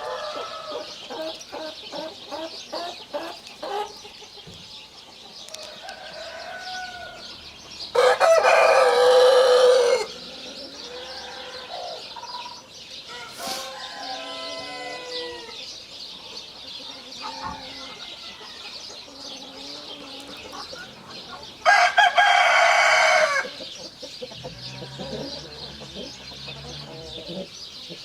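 Roosters crowing twice, each loud crow lasting about two seconds, one about eight seconds in and one near twenty-two seconds in. Chickens cluck between the crows, with a quick run of clucks at the start.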